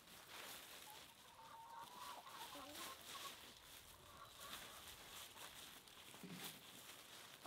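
Domestic chickens clucking faintly, with a drawn-out note about a second in and a few short soft calls after it.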